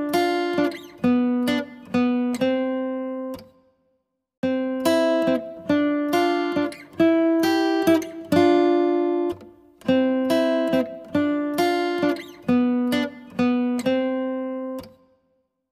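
Background music: a melody of plucked-string notes, each fading after it is struck, falling silent briefly about four seconds in and again near the end.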